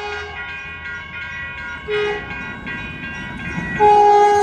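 Caltrain train horn sounding its grade-crossing signal: a long blast ending just after the start, a short blast about two seconds in, and a loud long blast starting near the end. Crossing warning bells ring throughout, about three strokes a second.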